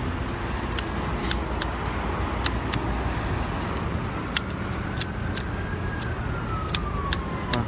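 Hand pruning shears snipping twigs and leaves in a quick, irregular run of sharp clicks, over a steady low traffic rumble. A faint siren-like tone slowly rises and then falls from about halfway through.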